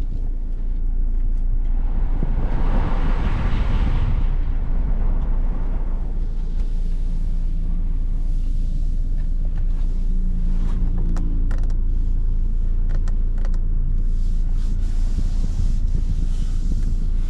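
A Toyota Kijang Innova Reborn with the 2GD-FTV 2.4-litre four-cylinder turbo diesel on the move, giving a steady low rumble of engine and road. A rush of noise swells and fades a few seconds in, and light clicks and creaks are scattered through the second half.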